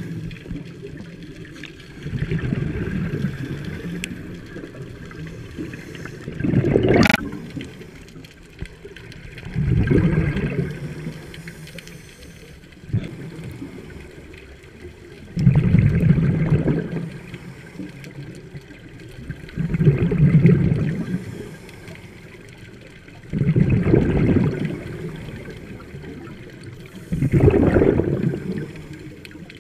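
Scuba diver's regulator exhaust heard underwater: bursts of bubbles from each breath out, about every four seconds, each lasting about a second, over a low background rush.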